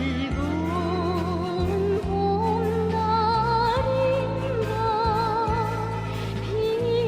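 North Korean pop music: a wavering melody line with heavy vibrato over long held bass notes and a regular beat.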